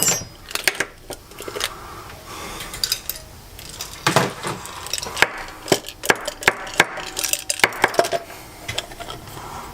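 Irregular sharp clicks, knocks and clatter of small plastic and metal lightsaber hilt parts and hand tools being handled and set down on a work surface during disassembly, busiest in the second half.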